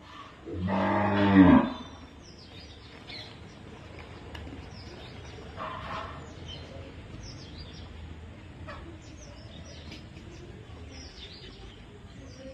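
A Gir bovine moos once: a loud call of about a second, falling in pitch at its end. Birds chirp in the background.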